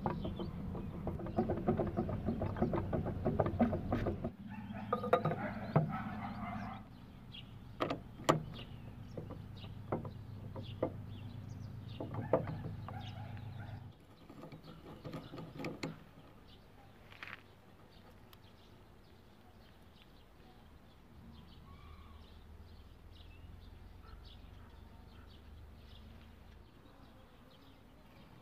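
Metal clicks and clinks of hand tools on a Honda Dio scooter engine's flywheel and its nut, over a steady low hum, through about the first half. After that it turns much quieter, with only a few faint clicks.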